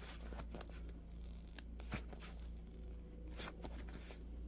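Rubber RC tire being worked off its plastic rim by gloved hands: faint scraping and rubbing, with a few short high squeaks as the glued bead pulls loose, over a steady low hum.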